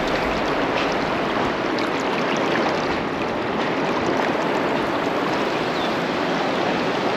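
Steady rushing noise with no clear rhythm or pitch.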